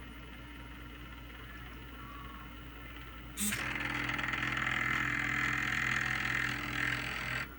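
Stepper motors of a mini CNC built from old CD-ROM drives driving an axis: a steady whine with a buzzing hiss that starts suddenly about three and a half seconds in, runs for about four seconds, and cuts off abruptly near the end. Before it, only a low steady hum.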